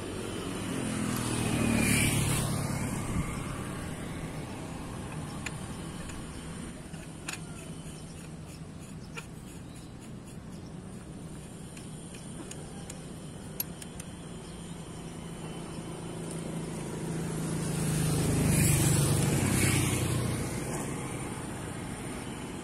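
Road traffic: a vehicle passes about two seconds in and another near the end, with a steady low road rumble between. A few small clicks sound in the quieter middle stretch.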